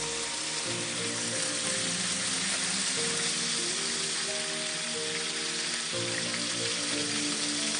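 Seasoned escalope slices sizzling steadily as they fry in hot oil in a pan, with background music of held notes underneath.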